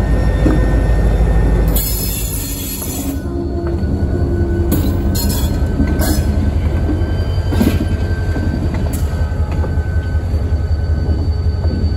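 Diesel locomotive's engine rumbling steadily as it rolls slowly past close by, with a thin wheel squeal and a few sharp clicks of the wheels over the rail.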